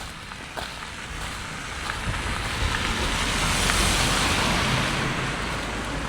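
A car passing on a wet road: the hiss of its tyres on the wet surface swells, peaks about four seconds in, and fades away.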